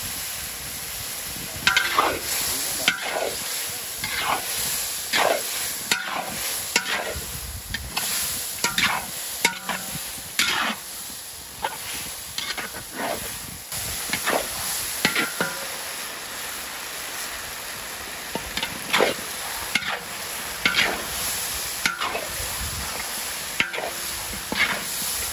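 A metal spatula scraping and stirring chicken feet around a large wok, in irregular strokes about a second apart, some much louder than others. Underneath, the chili paste fries with a steady sizzle.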